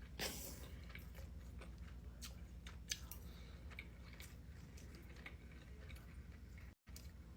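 Close-miked eating: a person chewing, with scattered wet mouth clicks and smacks. There is a brief rustling burst just after the start and a sharper click about three seconds in.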